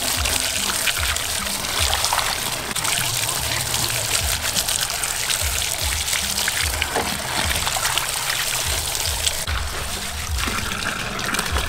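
Tap water pouring and splashing over bunches of spring onions being rinsed by hand in a metal basin, with background music carrying a low, repeated beat.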